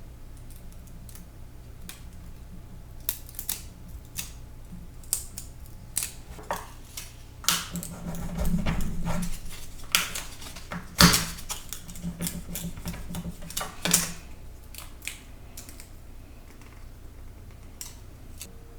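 Small handling sounds of work on a tabletop: scattered clicks, taps and brief rustling or scraping as knobs and transfer sheets are handled and rubbed, with a sharper knock about 11 seconds in, over a low steady hum.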